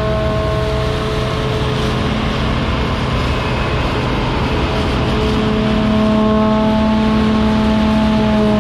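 Claas Lexion 430 combine harvester running under load while threshing rapeseed: a steady, dense machine drone with a constant hum. It grows a little louder over the last few seconds as the combine passes close by.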